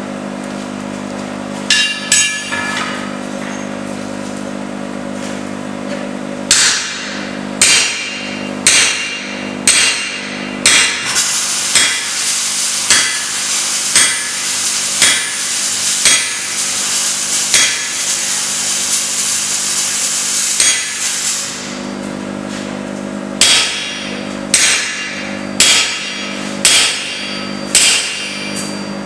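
Hand hammer striking hot steel on an anvil in a steady rhythm, about one blow a second, with a short pause about two-thirds of the way through before the blows resume. A steady hum runs underneath.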